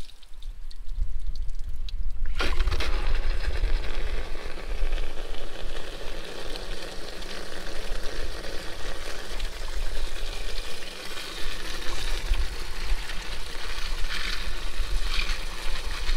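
Water from a hose rushing through a tractor engine block's coolant passages and pouring out, flushing out loosened rust and muck. The flow starts about two seconds in and then runs steadily.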